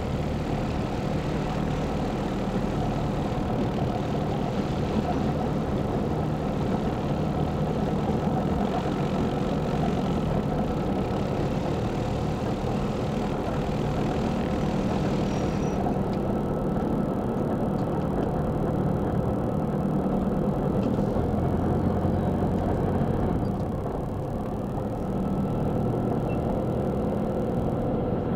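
Zenith CH 750 Cruzer light aircraft's piston engine and propeller running steadily at low power while it taxis, heard from inside the cockpit. Its loudness dips briefly about three-quarters of the way through.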